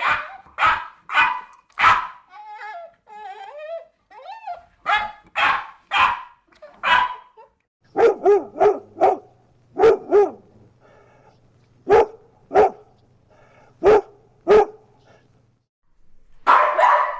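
A dog barking in bursts of short, sharp barks, with a softer stretch of whining a couple of seconds in. The barks come lower in pitch and more spaced out from about halfway, and turn dense again near the end.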